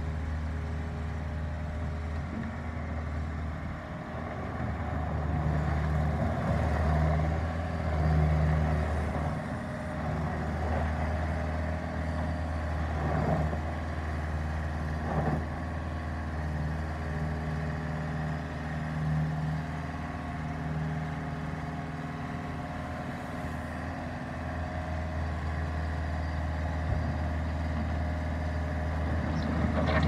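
Bobcat S205 skid steer loader's diesel engine running as the machine drives and turns, a steady low hum that swells in loudness at times as it works. There are a few brief knocks.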